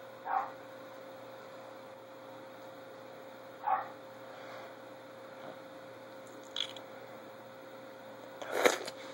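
A steady electrical hum. Two brief mid-pitched sounds come just after the start and a few seconds in, a short click about six and a half seconds in, and a louder cluster of knocks and rustling near the end.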